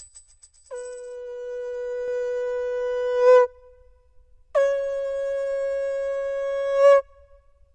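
Two long horn-like blasts from a Casio CT-X9000 keyboard's built-in sound effects, each about two and a half seconds long, the second a little higher in pitch, each swelling louder just before it cuts off.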